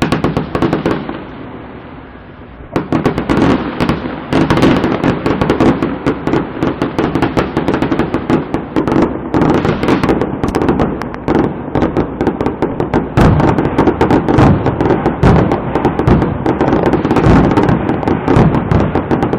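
Fireworks display: a bang that fades away, then from about three seconds in a dense, continuous barrage of rapid bangs and crackling.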